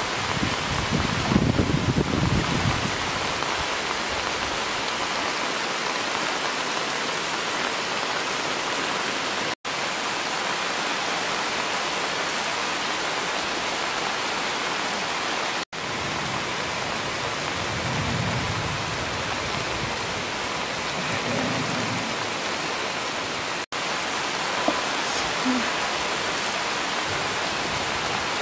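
Heavy, steady rain falling, with low rumbles of thunder about a second in and twice more later on. The sound drops out for an instant three times.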